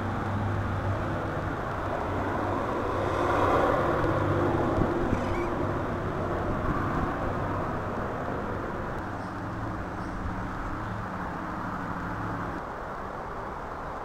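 A motor running with a steady low hum, a little louder a few seconds in and stopping suddenly near the end.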